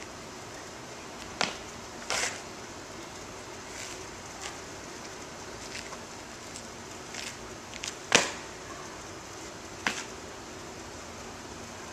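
A handful of sharp strikes from a Bajiquan form being practised: two about a second apart near the start, then a loud one about eight seconds in and another under two seconds later. Steady outdoor background noise lies beneath them.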